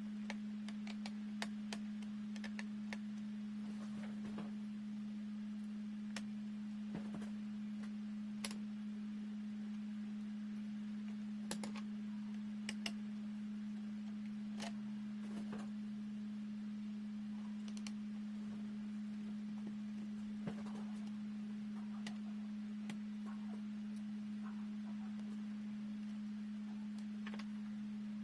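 A steady low hum with scattered small clicks and taps, the sound of laptop parts and small tools being handled during disassembly.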